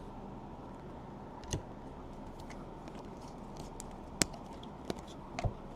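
Trading cards being handled: a few light, sharp clicks and taps of card stock over a faint steady background hum, the clearest click about four seconds in.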